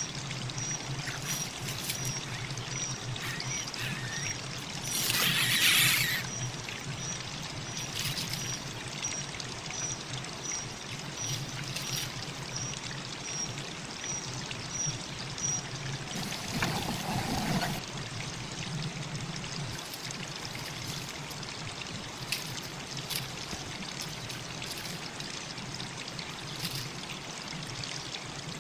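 Steady rushing noise, like running water, with a faint high chirp repeating about twice a second through the first half. There are short louder rushes about five seconds in and again past the middle.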